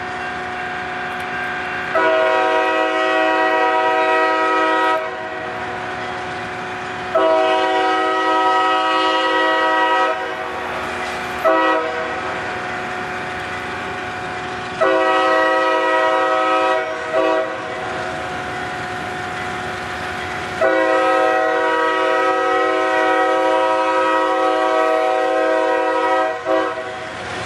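Diesel freight locomotive's multi-chime air horn blowing the grade-crossing signal: two long blasts, a short one, then more long blasts, the last held about six seconds. A steady rumble from the approaching train runs underneath.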